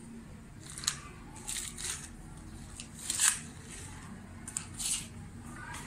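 Small toy cars being handled and pushed along a hard floor: scattered light clicks and short scrapes, the loudest about three seconds in.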